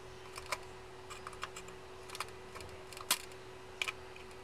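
Scattered small clicks and taps from hands working a wire antenna and the two-part wooden jig that holds it, with one sharper click about three seconds in.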